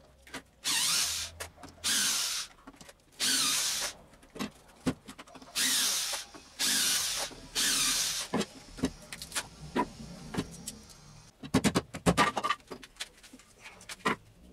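Cordless drill driving screws through a wooden board into the end of a log, in six short bursts of about half a second each. After them come scattered sharp knocks and clicks, loudest in a quick cluster about twelve seconds in.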